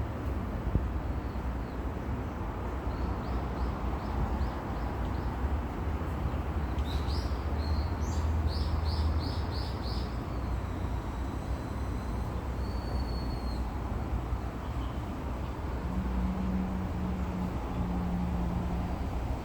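Outdoor ambience with a steady low rumble, over which a small bird calls: a faint run of short chirps a few seconds in, then a louder quick series of repeated chirps about seven to ten seconds in. A low steady hum comes in near the end.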